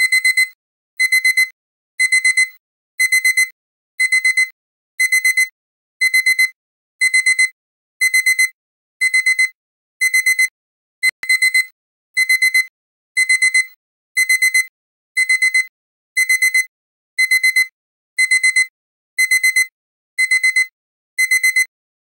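Electronic alarm-clock beeping: the timer's finishing alarm, sounding a quick run of high-pitched beeps about once a second, over and over, to signal that the countdown has run out.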